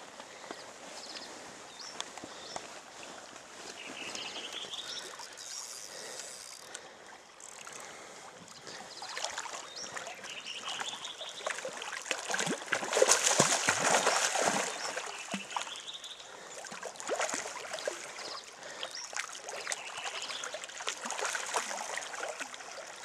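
River water running and rippling steadily. Short rising whistles come every few seconds, and about halfway through there is a louder rush of noise lasting about two seconds.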